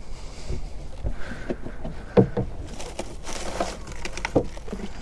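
Water lapping against a small boat's hull, with irregular light knocks and a brief rustle a little past halfway as fishing tackle and bait are handled on deck.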